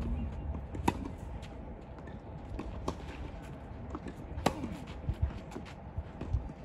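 Tennis rally: rackets striking the ball with sharp pops, the loudest about a second in and again about four and a half seconds in, with fainter hits and bounces between, over a low steady rumble.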